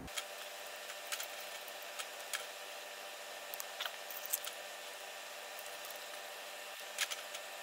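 A few faint, scattered clicks and light metallic rattles from a thin roller chain and guide wire being handled by hand. The loudest comes near the end, over a steady low hum.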